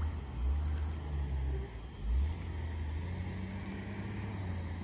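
Wind buffeting the phone's microphone in an uneven low rumble, with faint insect chirps repeating about four times a second in the first half.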